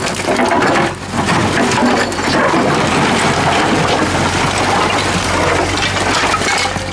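Steel bucket of a Doosan DX55W wheeled excavator scraping over brick paving and scooping broken bricks and concrete: a dense crunching and clattering of rubble over the steady hum of the machine's diesel engine.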